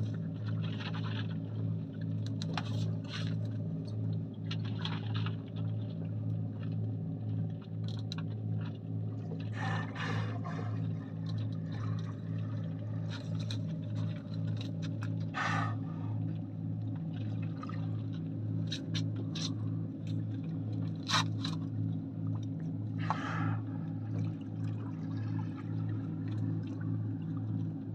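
Small boat's engine idling steadily with an even pulse, while water splashes and sloshes against the hull now and then.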